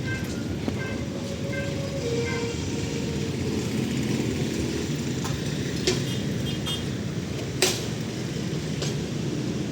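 Freight train rumbling past. A short high beep repeats about twice a second and stops about two seconds in, and a few sharp clanks stand out later, the loudest near the end.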